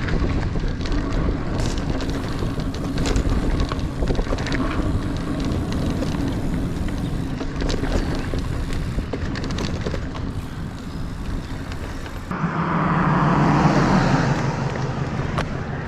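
Niner Air 9 RDO 29er mountain bike riding dirt singletrack: tyres rolling over the trail with scattered clicks and knocks from the bike, and wind on the microphone. About twelve seconds in the noise grows louder and fuller for a few seconds.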